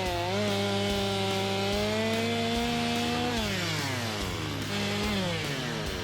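Battery-powered electric chainsaw running in a log, its motor whine steady at first, then falling away about three seconds in, picking up briefly and winding down again near the end. The saw is cutting only slowly.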